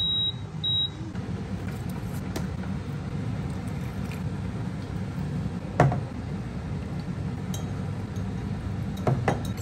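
Electric oven beeping twice in short high tones as it is set after the buns go in, then a steady low hum of the oven running. One sharp knock comes about six seconds in and a couple of lighter knocks near the end.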